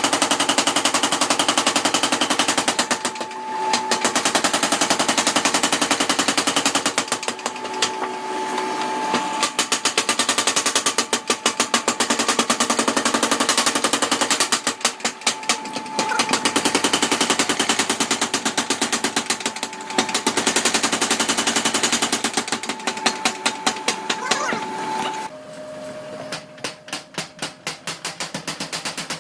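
A 100 kg mechanical power hammer pounding hot steel in rapid, even blows, several a second, with a steady metallic ring and brief pauses between runs. Near the end the blows slow, grow quieter and the ring drops lower.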